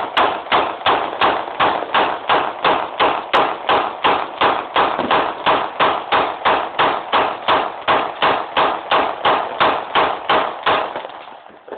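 Celebratory gunfire: a handgun fired into the air in a long, steady, rapid string of shots, about three a second, stopping about a second before the end.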